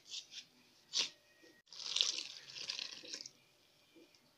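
Liquid yeast mixture poured into a bowl of flour: a splashing trickle lasting about a second and a half, starting about two seconds in. It follows a few short scratchy sounds in the first second.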